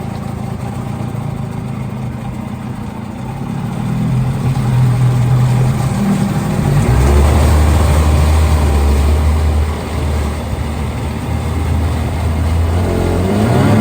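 Mikatsu outboard motor running, its engine speed changing: the note drops lower and gets louder about halfway through, then rises near the end as it is revved.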